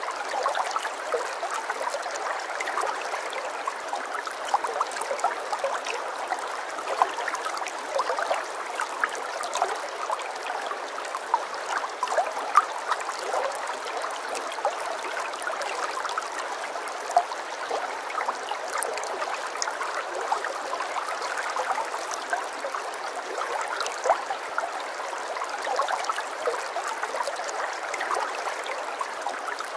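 Running water of a small stream, a steady babbling with many small splashes and no deep rumble.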